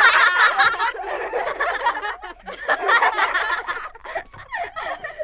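People laughing and snickering, loudest at the start and again about halfway through.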